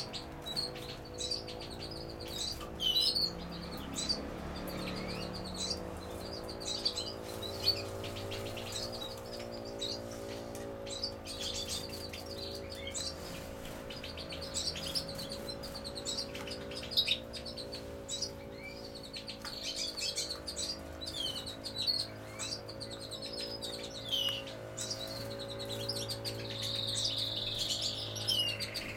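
European goldfinches calling in an aviary: many short chirps and twittering notes, with a longer twittering run near the end. A steady low hum runs underneath.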